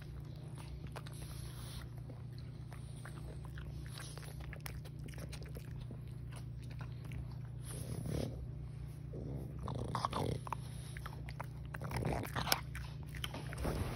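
Pug puppy gnawing on a hard bone-shaped dog biscuit: irregular small crunches and clicks, with a few louder noises in the second half over a steady low hum.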